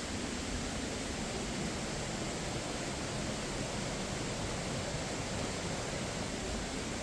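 Steady, even rushing of water, with no distinct events.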